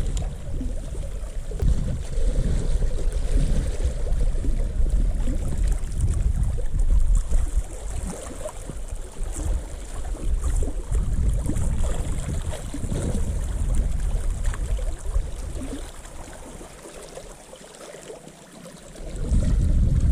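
Wind buffeting the microphone in uneven gusts, with a light hiss of water or surroundings over it. The rumble drops away for a couple of seconds near the end, then comes back.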